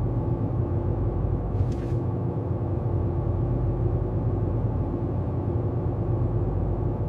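Steady low rumble and hum with faint held tones: sci-fi spaceship ambience. A faint brief hiss comes about two seconds in.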